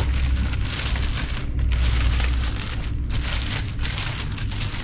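Thin plastic shopping bag rustling and crinkling in long stretches as a box is pulled out of it, over a steady low rumble.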